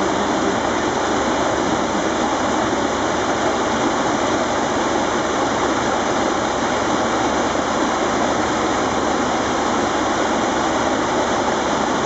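Mountain torrent rushing over rocks, a steady, even roar of white water.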